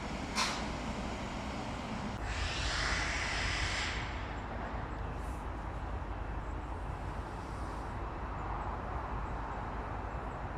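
Steady low outdoor background rumble, with a short tick about half a second in and a brief louder hiss from about two to four seconds in.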